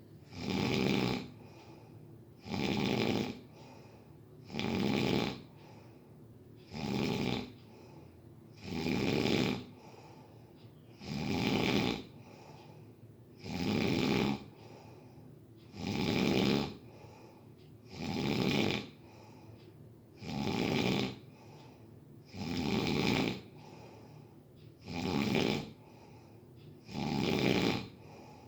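Snoring, steady and regular: about thirteen snores, one roughly every two seconds, each lasting just under a second.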